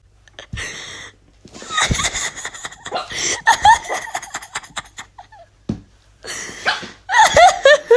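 A person laughing hard in repeated bursts, with a short break and a fresh fit of laughter near the end.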